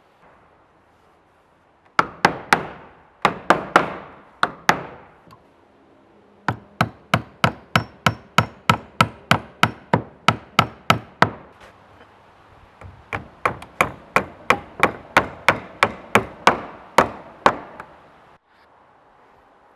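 Hammer driving nails into wood: runs of sharp, steady blows about three a second, broken by short pauses.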